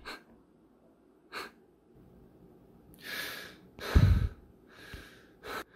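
A man breathing hard in short, audible breaths, with a loud voiced gasp about four seconds in.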